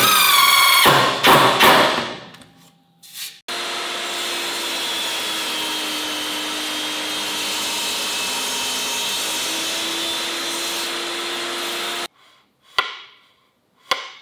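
A DeWalt 20V cordless impact driver whirring and hammering as it drives a screw, dying away about two seconds in. Then a table saw runs steadily for about eight seconds as a pine board is pushed through the blade on a crosscut sled, its tone dipping slightly in the middle, and stops suddenly; two short knocks follow near the end.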